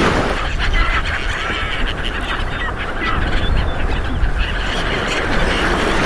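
A flock of black-headed gulls calling, many short cries overlapping one another, over a steady low rumble of wind on the microphone.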